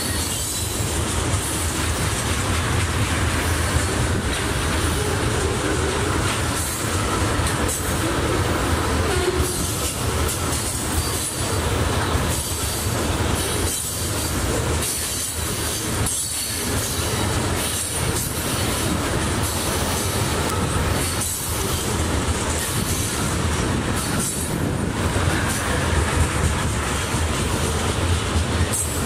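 Freight train of crude-oil tank cars rolling past close by: a steady rumble and clatter of steel wheels on the rails, with a thin wheel squeal that grows stronger near the end.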